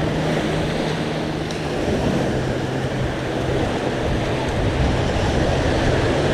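Sea surf washing steadily on the beach, with wind on the microphone and a faint steady low hum underneath.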